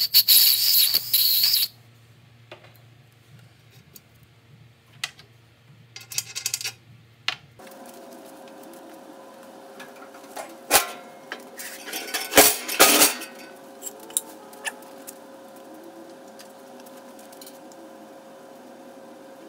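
A loud hiss from an aerosol can, sprayed through a red straw onto a rusty safe hinge pin, lasting about a second and a half. This is followed by scattered small clicks. After that comes a steady hum, with several loud metal clanks and knocks a few seconds later as the steel safe body is handled.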